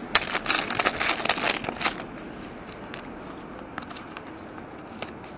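Trading cards being handled and sorted: a dense crinkling rustle for about the first two seconds, then only a few scattered light ticks.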